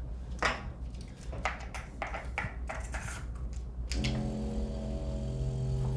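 A few short rustles and clicks, then about four seconds in a handheld percussion massage gun switches on and runs with a steady motor hum.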